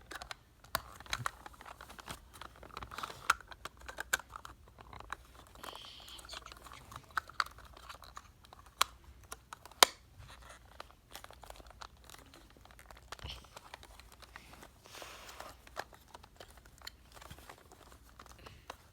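Plastic panda Rubik's cube being twisted and turned by hand: irregular plastic clicks and clacks as its pieces are rotated, with one sharper click about ten seconds in.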